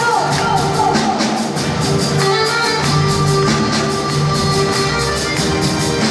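Live band playing a Latin American folk song, with accordion, guitar and drums keeping a steady beat.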